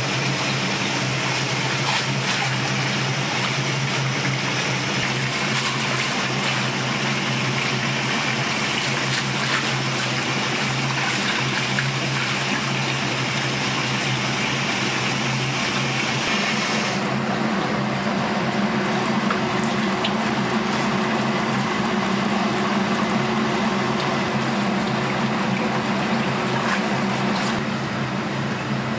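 A steady hiss over a low, steady mechanical hum. The highest part of the hiss drops away a little past halfway through.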